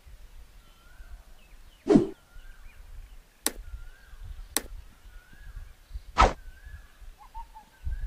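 Subscribe-button animation sound effects: a whoosh about two seconds in, two sharp mouse clicks about a second apart, then another whoosh. Under them a bird calls over and over with short chirps.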